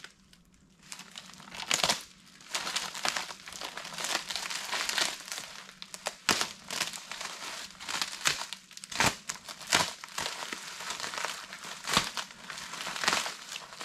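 Bubble wrap and plastic packaging crinkling and rustling as it is pulled and cut open with a razor blade, with irregular sharp crackles. It starts about a second in.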